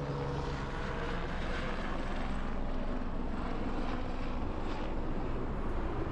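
Helicopter flying right overhead: a steady rotor and engine drone.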